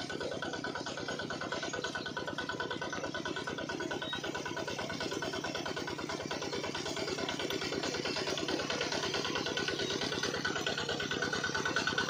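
The small motor of a miniature model water pump running steadily with a rapid, even pulsing like a small engine idling, growing slightly louder toward the end.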